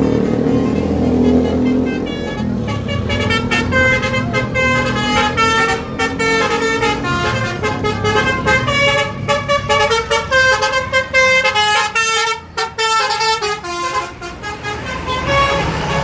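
Bus telolet horn, a multi-note musical air horn, playing a quick tune of short stepped notes over the bus's running engine. The tune starts about two and a half seconds in.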